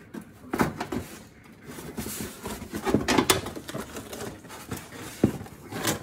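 A car's plastic wheel arch liner being pulled out of the wheel well: irregular scraping and rustling of stiff plastic, with a few sharp knocks, the loudest about five seconds in.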